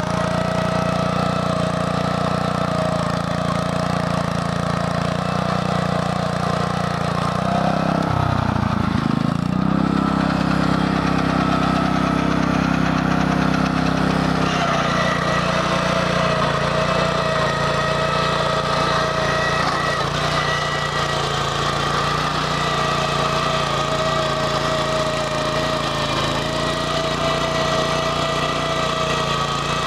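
Walk-behind tractor's engine running steadily as it drives a Berta rotary plow through the soil, with the engine note dipping briefly and recovering about eight seconds in.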